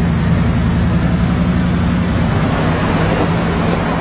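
Bugatti Veyron's quad-turbo W16 engine running steadily at low revs as the car rolls slowly past, a constant low hum over street noise.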